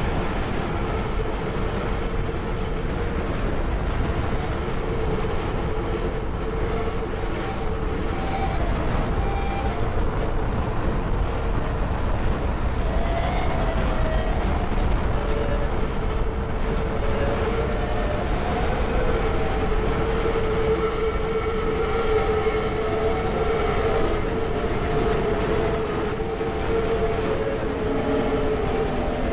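Electronically processed sound collage of field recordings: a dense, steady rumble with a held mid-pitched tone that swells in the second half, and faint drifting notes above it.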